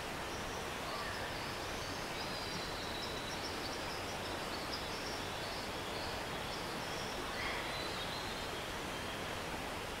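Rainforest stream running with a steady, even rush of water. Faint high chirping calls sound over it through most of the stretch.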